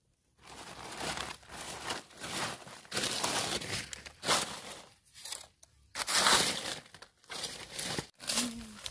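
Dry fallen leaves crackling and rustling in a run of uneven bursts as the forest-floor leaf litter is scraped and pushed aside, starting about half a second in and loudest about six seconds in.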